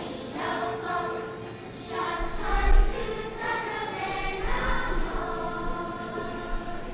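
Children's choir singing in a church. A low rumble comes in underneath about two seconds in and again near the end.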